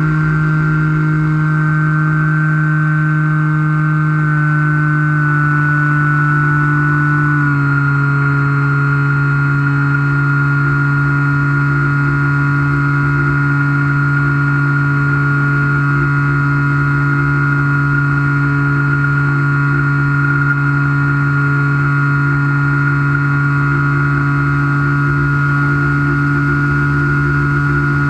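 Skywalker model plane's electric motor and propeller whining steadily in flight, heard onboard with a low wind rumble. The pitch drops a little about four seconds in and again about seven and a half seconds in as the throttle is eased back, then holds steady.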